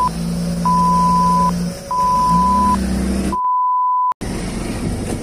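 Censor bleeps: a steady single-pitch beep sounding three times, each just under a second long, blanking out angry swearing. The last bleep plays with all other sound cut out.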